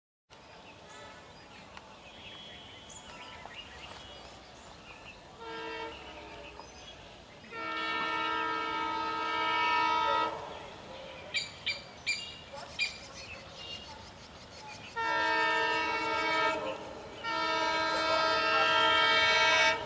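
A diesel locomotive's multi-tone air horn sounds as the train approaches: a short blast about five seconds in, a long blast of about three seconds, then two more long blasts close together near the end. Between the blasts there is a quick run of sharp clicks.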